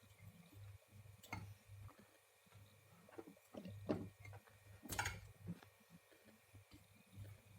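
Scattered light clicks and taps from hands fitting cable connectors onto a refrigerator compressor's terminals, over a faint low hum.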